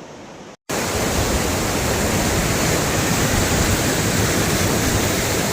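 Mountain waterfall rushing, a loud, steady roar of falling water that starts after a cut about half a second in; before the cut, a fainter steady rush of water.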